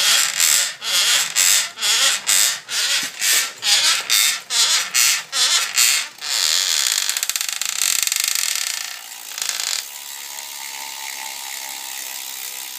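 Cervélo S5 road bike's BBright bottom bracket creaking in a steady rhythm, about two creaks a second, as the cranks turn. About six seconds in the creaking stops, giving way to a steady whir that drops quieter after about nine seconds.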